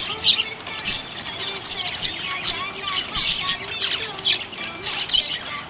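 Budgerigars chirping and chattering: a dense run of rapid, overlapping short chirps and clicks with occasional squawks.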